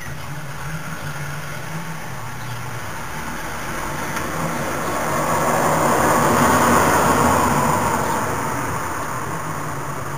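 A vehicle passing by: a broad rushing noise that swells to a peak a little past the middle and fades away again.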